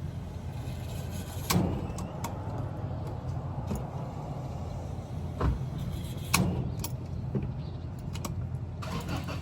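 A steady low vehicle engine rumble, with scattered sharp clicks and knocks of handling.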